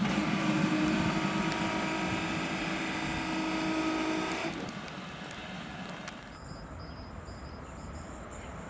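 Electric regional passenger train running away into the distance: a steady rumble with whining tones, fading. About halfway through it gives way to a quieter stretch with faint, evenly repeated high chirps.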